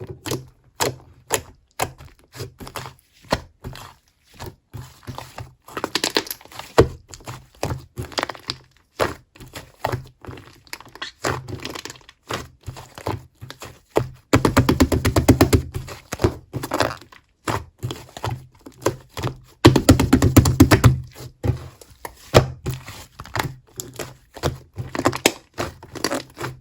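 Slime being squished and pressed by hand, making a string of sharp pops and clicks, with two spells of fast crackling, one about halfway through and one a few seconds later.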